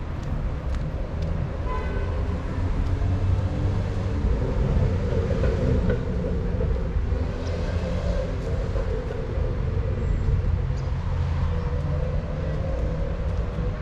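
A steady low rumble with a droning tone through it, and a brief higher pitched tone about two seconds in.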